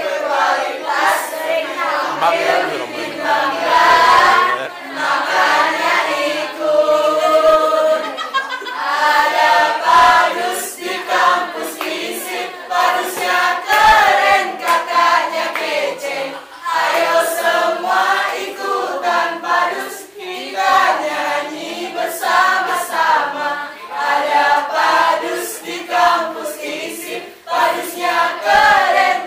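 A mixed choir of men and women singing together, in phrases with short breaks between them.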